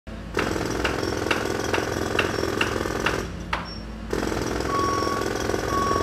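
Jackhammer hammering steadily, breaking off for about a second near the middle and starting again. A short beep repeats in the second half.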